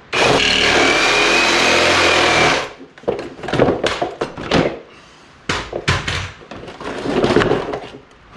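A power tool runs steadily for about two and a half seconds, cutting through the plastic body of a Power Wheels ride-on toy, with a faint rising whine. Then comes a run of irregular cracks, snaps and knocks as the cut plastic is broken and pulled away.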